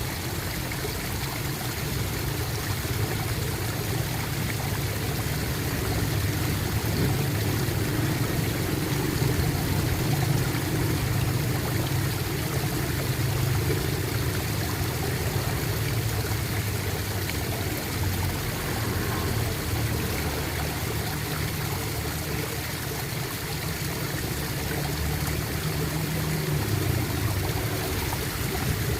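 Running water gurgling steadily, a continuous churning flow with a full low rumble.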